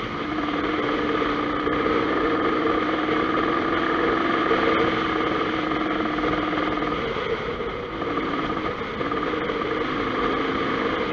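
Dirt bike engine running steadily while riding a gravel track, heard close from on the bike. The engine note eases about seven seconds in.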